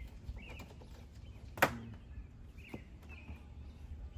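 Light clicks and taps of door-handle parts being handled, with one sharp click about a second and a half in.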